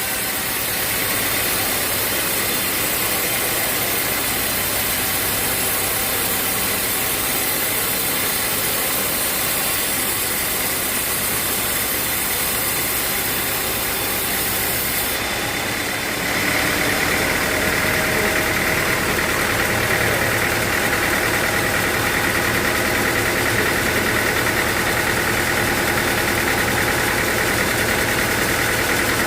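Sawmill machinery running steadily, an engine-driven saw. About halfway through, the sound gets slightly louder and fuller.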